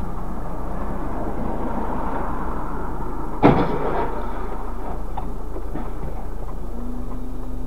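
Steady in-car road and engine rumble picked up by a dashcam, with one sharp bang about three and a half seconds in: the crash of a truck ahead.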